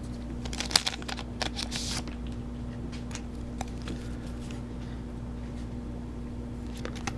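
A foil booster pack crinkling and being torn open, with several sharp crackles and a brief tearing rasp in the first two seconds. After that come scattered light handling ticks over a steady low hum.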